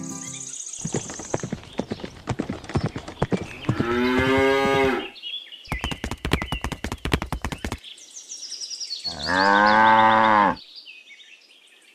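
Cow mooing twice, each call about a second long, the second louder. Runs of quick clicking taps come before each moo.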